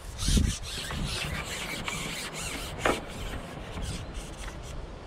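Rubbing and rustling right at the camera, with many quick crackles and one sharper knock about three seconds in: handling noise as the camera moves past reeds and grass.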